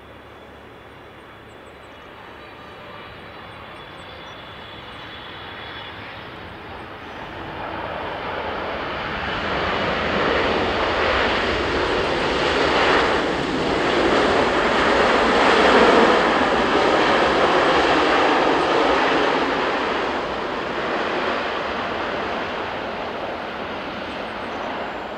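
Air Canada Boeing 777's GE90 turbofan engines heard as it lands and rolls out: a faint high whine, then a loud jet rush that builds to its peak in the middle and slowly eases off near the end.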